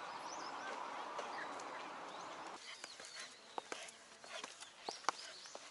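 Small birds chirping in short, arching calls over a steady outdoor hiss that drops away suddenly about two and a half seconds in. After that, sharp clicking footsteps on stone steps sound among the chirps.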